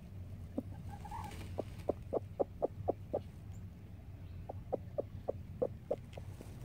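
Broody bantam hen clucking on her nest: two runs of short, low clucks at about four a second, with a pause of about a second between them.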